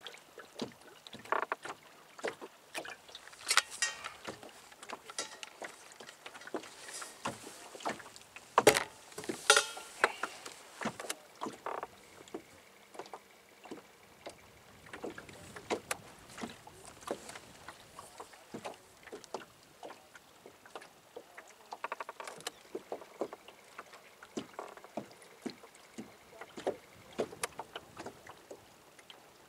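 Small waves lapping and slapping against the hull of a small fishing boat: irregular short splashes and knocks, with a few louder knocks about a third of the way through.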